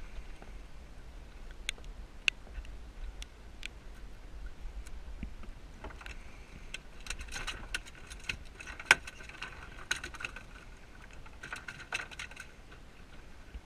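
Fishing gear and a cooler being handled in a small inflatable boat: scattered sharp clicks and knocks, with two spells of denser rattling, the busier one in the middle and a shorter one near the end.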